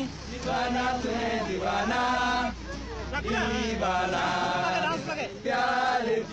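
A crowd of men's voices chanting together in short repeated phrases, roughly one a second.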